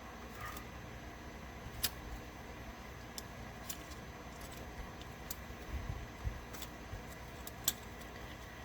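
Scattered small sharp clicks and light taps of hand tools on a circuit board during desoldering, about half a dozen, the two loudest about two seconds in and near the end, with a few soft low knocks in between.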